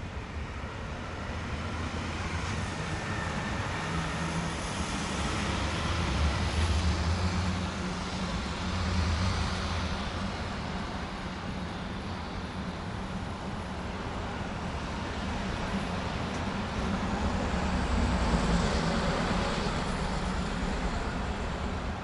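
Road traffic ambience: a continuous rumble of passing vehicles and engine hum, with several vehicles swelling louder as they go by, the loudest about three-quarters of the way through.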